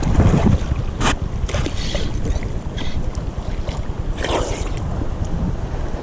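Wind buffeting the microphone over open water, a steady low rumble with light water sounds, broken by a few short clicks and knocks, the sharpest about a second in.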